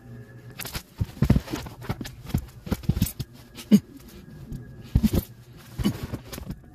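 Irregular knocks, taps and scuffs of a moulded foam trunk under-tray being set down and pressed into place on the car's cargo floor, with a sharp knock a little past the middle.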